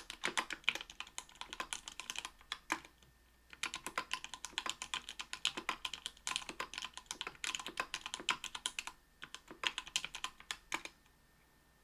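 Typing on an Octagon V3 keyboard with Krytox 105-lubed Everglide Sky Blue 55 g linear switches in an aluminium plate and GMK keycaps: quick runs of keystrokes, with a short pause about three seconds in and another about nine seconds in. The typing stops about eleven seconds in.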